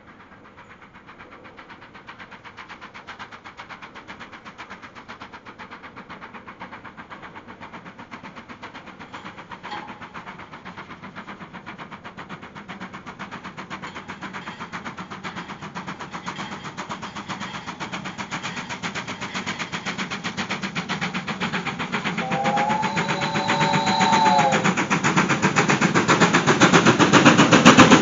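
BR Standard Class 5 two-cylinder 4-6-0 steam locomotive approaching under steam, its exhaust beats coming in a rapid, even rhythm and growing steadily louder. Its whistle sounds once, briefly, about two-thirds of the way through.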